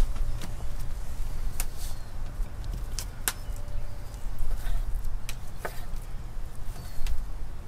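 Knife cutting beef filet on a cutting board: a few sharp, irregularly spaced knocks over a steady low rumble.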